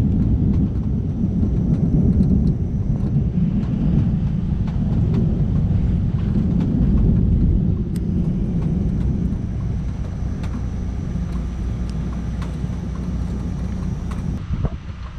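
Low rumble of a utility truck's engine as it drives slowly nearby, fading gradually towards the end.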